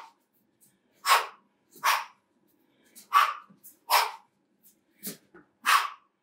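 Sharp, hissing exhalations through the teeth, one with each punch of a slip-and-counterpunch boxing drill, coming roughly every second, mostly in pairs.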